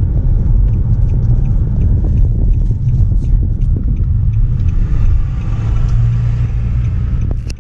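A car driving along a road: a steady, loud low rumble of road and engine noise, with faint small ticks and rattles over it.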